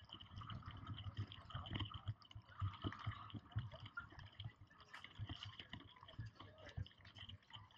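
Busy pedestrian street ambience: irregular footsteps and handling knocks from someone walking with the camera, with scattered crowd voices in the background.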